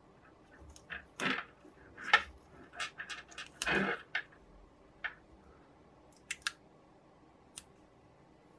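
Plastic tape being wrapped and pressed around the end of a wooden tool handle: a few seconds of irregular crinkling and rustling, then a handful of small ticks.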